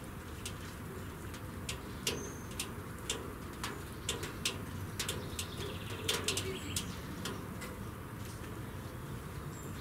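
Birds calling outdoors: scattered short high chirps and sharp ticks, with a faint low call near the middle, over a steady low hum.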